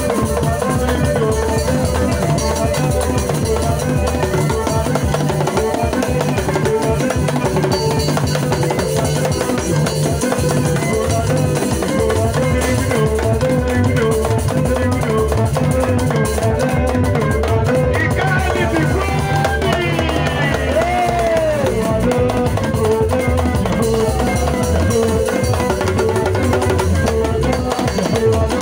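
Band music with a steady drum-kit beat, with a few sliding notes about two-thirds of the way through.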